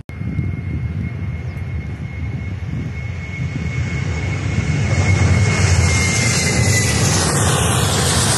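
Boeing 737-800's CFM56-7B jet engines at takeoff thrust on the takeoff roll, growing louder as the airliner approaches and passes. A steady high whine runs over the engine noise and drops in pitch about two-thirds of the way through as the plane goes by.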